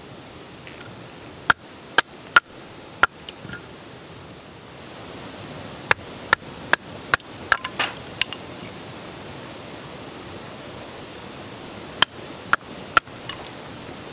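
Three runs of short sharp knocks, about two a second: four near the start, about seven in the middle and three near the end, over a steady background hiss.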